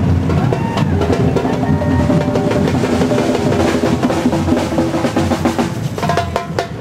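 Parade music led by loud, busy drumming and percussion, with a melody carried over the beat.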